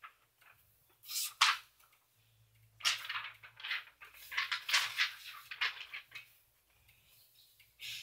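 Sheets of lined paper being handled, rustling and sliding over a plastic folder in several short bursts as one page is taken away and another put down.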